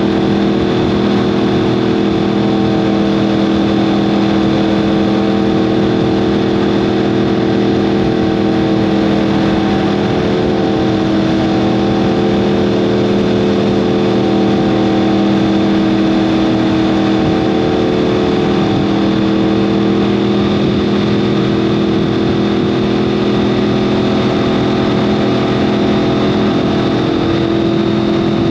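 2015 Yamaha R1M's crossplane-crank inline-four engine running through an Akrapovic exhaust, holding a steady pitch as the bike cruises at a constant speed, over a steady rush of noise.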